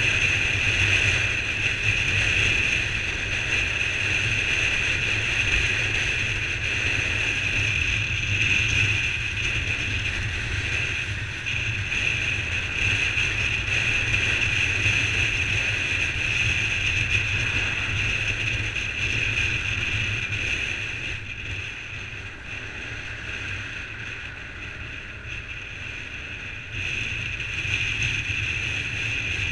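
Honda CBR125R motorcycle's single-cylinder engine running steadily under way, mixed with wind rushing past the bike-mounted camera. The sound eases off for several seconds about two-thirds of the way through as the bike slows, then picks up again near the end as it accelerates.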